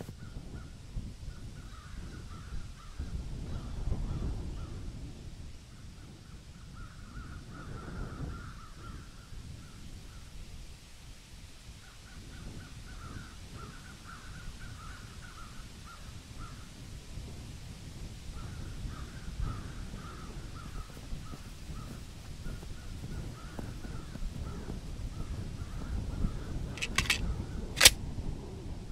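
Outdoor woodland ambience: birds calling off and on over a low wind-like rumble. Near the end, a quick run of sharp clicks and then one loud crack.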